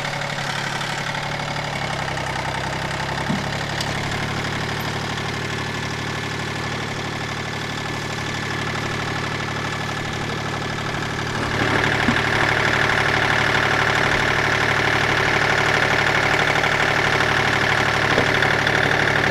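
Kubota diesel tractor engine running steadily, heard from the operator's seat, growing louder about two-thirds of the way through.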